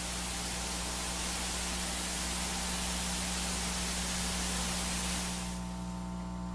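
Steady electrical hiss over a low, even hum on a broadcast audio line, with no speech. The upper part of the hiss drops away about five and a half seconds in.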